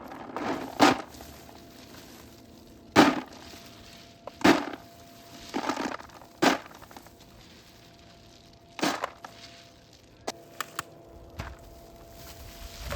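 A series of irregular knocks and cracks, about seven of them spread a second or more apart, with a few fainter clicks between.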